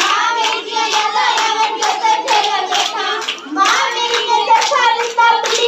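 Girls singing a Punjabi folk song for Gidha, with the group keeping time by clapping in a steady rhythm of about two claps a second.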